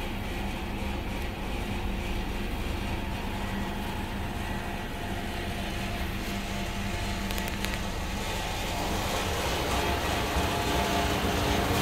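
A 2014 Chevrolet Cruze's 1.4-litre turbocharged four-cylinder engine running at idle, heard from inside the cabin. It grows a little louder over the last few seconds.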